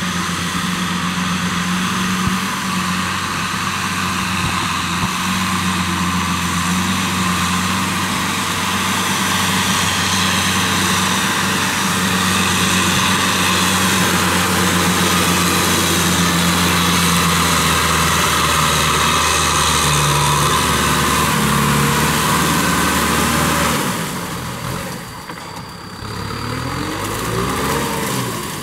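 Kubota M6040SU tractor's diesel engine running steadily under load, driving a Maschio rotary tiller that churns through wet soil with a constant clattering hiss. About 24 seconds in the sound drops and the engine pitch swings up and down for a few seconds.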